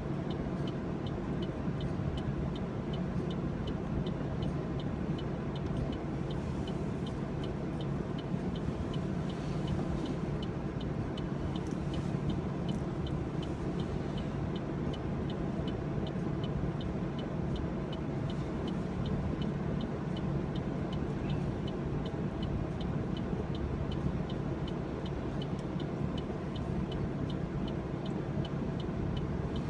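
Car engine idling steadily, heard from inside the cabin, with a light regular ticking about twice a second.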